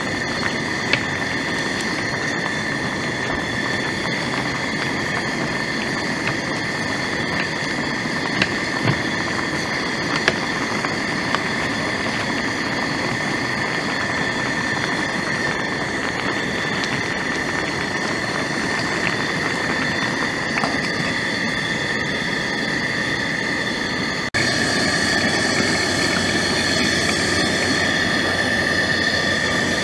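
A pot of stew boiling hard on a portable gas stove: steady burner hiss and bubbling, with a few small clicks and a steady high-pitched drone underneath. About 24 seconds in, the sound switches abruptly to a louder steady hiss.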